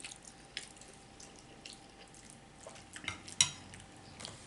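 Someone eating spaghetti: soft, scattered wet mouth clicks and small taps of cutlery on a plate, with one sharper click about three and a half seconds in.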